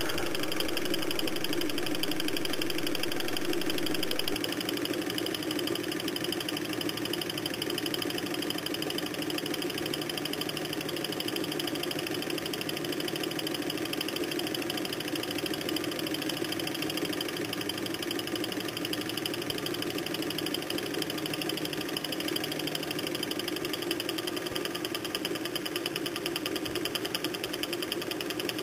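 Nexus Stirling engine with a foam displacer, heated by propane and water-cooled on top, running steadily with a fast, even mechanical clatter.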